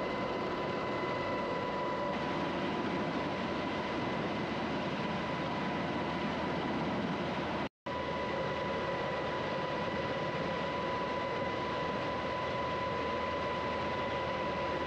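Aircraft engines running steadily: an even rush of noise with a steady whine through it, cut off for a split second about halfway through.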